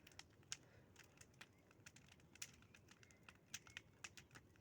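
Faint, irregular crackling and popping of a small campfire burning rubbish: scattered sharp snaps over a low hiss.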